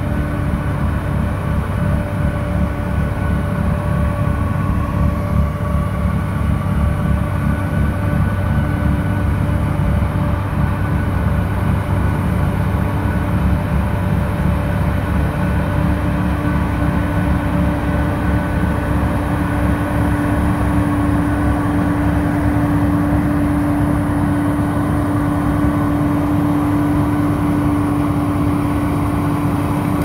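Volvo wheel loader's diesel engine working hard while driving a front-mounted snow blower that throws snow into a dump trailer: a loud, steady heavy drone with a constant whine that grows stronger about halfway through.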